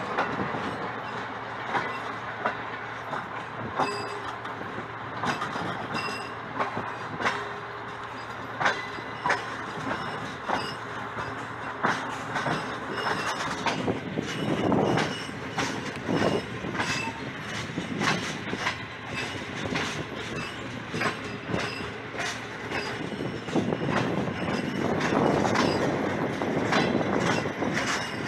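Passenger train running along the track, heard from a coach window: a steady rush of wheel and wind noise with irregular clicks and clanks over the rails and a few faint high squeaks. The running noise grows louder near the end.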